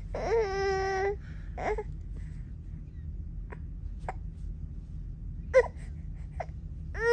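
A five-month-old baby fussing and crying in separate bursts: a held, high-pitched cry in the first second, a short sob, a brief sharp yelp about five and a half seconds in, and a new cry starting at the very end.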